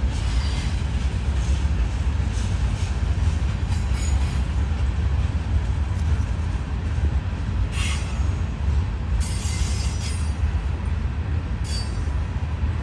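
Norfolk Southern freight train cars rolling past at close range: a steady low rumble of wheels on rail. Brief high-pitched wheel squeals come about eight seconds in, again about a second later, and once more near the end.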